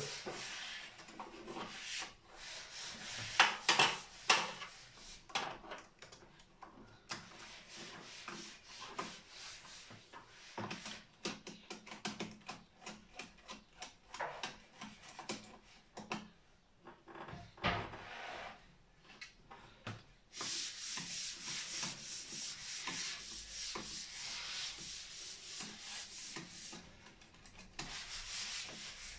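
Scraping, rubbing and small clicks of a plastic-insulated comb busbar being worked by hand into the terminals of a row of circuit breakers in a consumer unit, with a denser stretch of scraping about two-thirds of the way through.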